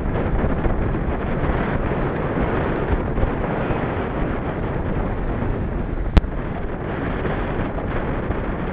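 Wind rushing over the microphone during a bicycle ride, a steady rush, with one sharp click about six seconds in.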